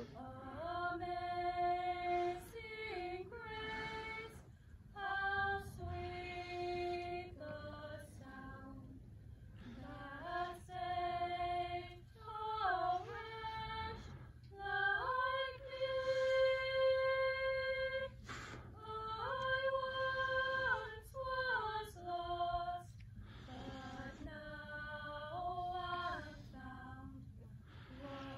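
Two young women singing a slow song without accompaniment through a PA system, in phrases of long held notes with short breaths between them.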